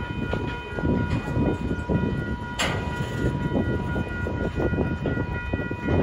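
Empty intermodal well cars of a long freight train rolling past, wheels clattering and rumbling on the rails, with a faint steady high ringing tone over it. A single sharp bang comes about two and a half seconds in.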